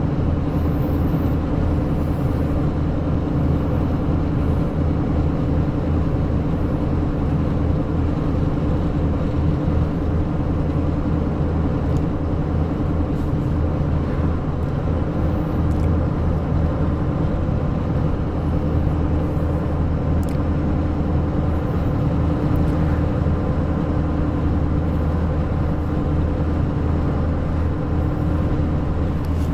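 Steady engine and road noise inside a moving pickup truck's cab: a continuous low drone with tyre rumble.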